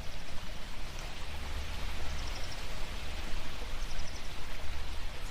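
Steady rain falling, an even patter. Twice, about two and four seconds in, a faint, high, rapid chirping trill sounds briefly over it.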